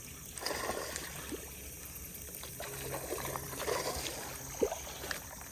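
Faint splashing and trickling water, uneven and soft, with a sharp click a little past four and a half seconds in.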